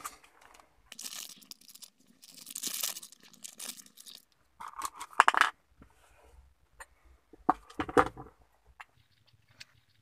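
Hands working at a bare manual gear-lever shaft with the shift knob off: rustling and scraping in bursts, then several sharp clicks and a loud knock about eight seconds in.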